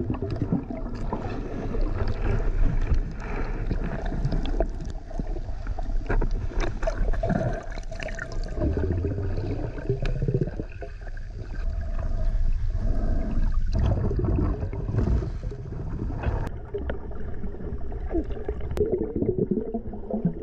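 Water gurgling and sloshing around a camera held underwater. The sound is muffled and mostly low, rising and falling unevenly.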